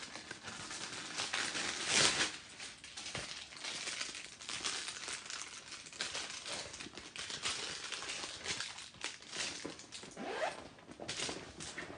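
Clear plastic wrapping crinkling and rustling as hands pull it off a new handbag, in uneven spurts with the loudest crackle about two seconds in.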